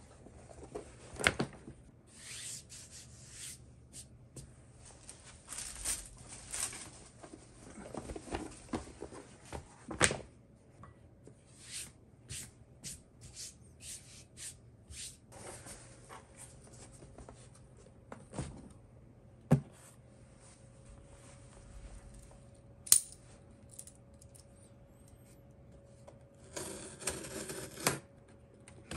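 Packaging being handled and opened: repeated rustling and tearing, with a few sharp knocks as items are set down, the loudest about ten seconds in and near twenty-three seconds.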